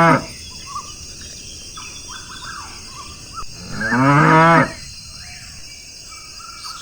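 Cow mooing: the tail of one moo at the very start, then one full moo about a second long a little past halfway. Faint short chirps sound between the moos.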